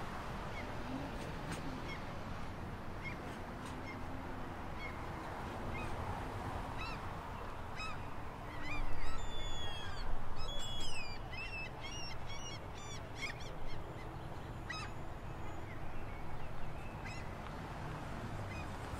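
Birds chirping and calling over a steady hiss of outdoor background noise; the calls come thickest and loudest about halfway through.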